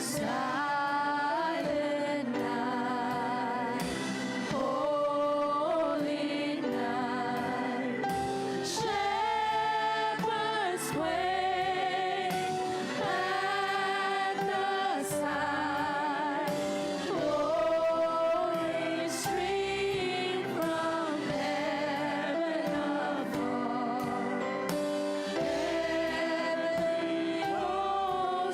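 Church worship song: voices singing a melody with vibrato over sustained keyboard chords, with a few light cymbal strokes.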